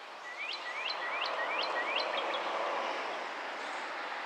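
A songbird calling a quick series of about seven rising, upslurred chirps, ending in a couple of short notes, over a broad rushing background noise that swells and fades in the middle.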